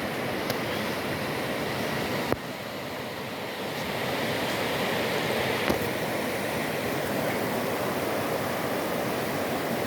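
Steady rush of a small waterfall, with a couple of brief clicks about two and six seconds in.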